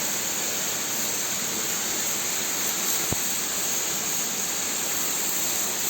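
High-pressure water jet from a cow-shed washer's spray gun (single-phase motor driving a three-piston pump), spraying steadily with a continuous hiss. A single sharp click about halfway through.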